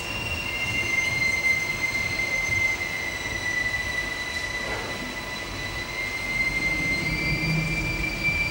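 Sustained high-pitched tones from the show's soundtrack, like a squeal, shifting to a new pitch about a second in and again near the end.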